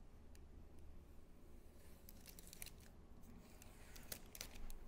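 Faint, scattered clicks and rustles of handling, a few short ones around the middle and a couple more near the end, over a quiet room.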